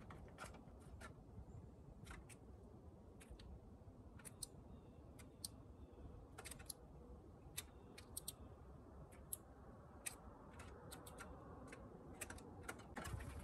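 Blue jay picking at sunflower seeds in a small metal dish on a wooden table: scattered, irregular sharp clicks and taps of its beak over a faint quiet background.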